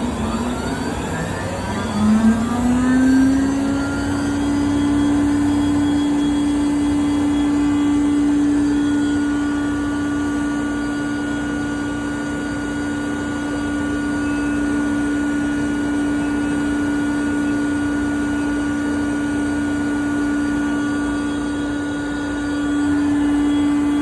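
Parker Majestic internal (ID) grinder running under power: a steady machine hum whose pitch climbs about two seconds in as it comes up to speed, then holds level.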